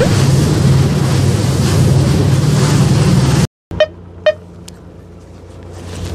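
A fishing boat's engine running with wind noise on the microphone. After a brief cut, two short horn beeps about half a second apart, then a quieter, steady engine hum.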